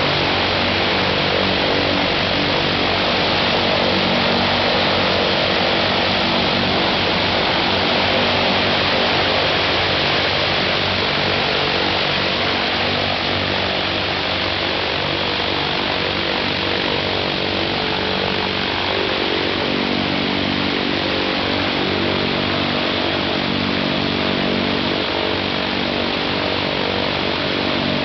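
Ilyushin Il-14T's right-hand Shvetsov ASh-82T engine, a 14-cylinder twin-row radial, running steadily on a ground run with its propeller turning. Its low note grows stronger about two-thirds of the way through.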